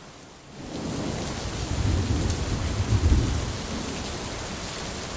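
Steady rain falling, with a roll of thunder that swells in about a second in, is loudest around two to three seconds in, and dies back into the rain.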